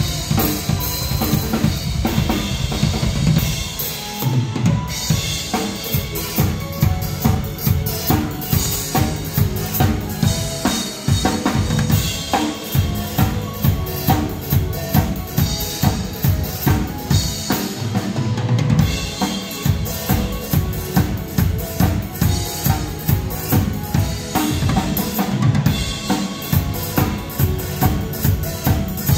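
Acoustic PDP drum kit played in a live solo: bass drum, snare and cymbals hit in a steady groove of about two to three accents a second, with a few short breaks in the bass drum.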